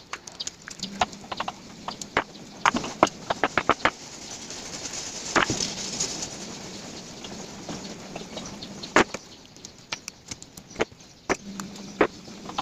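Cardboard jigsaw puzzle pieces being handled: irregular sharp clicks and taps, with a longer rustle about five seconds in.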